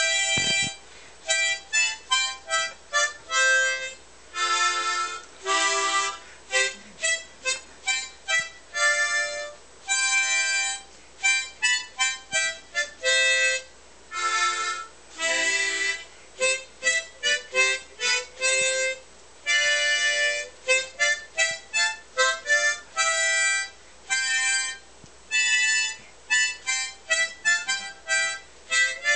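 Harmonica played solo: a tune of short, separated notes and chords, with longer held chords every few seconds and brief pauses between phrases.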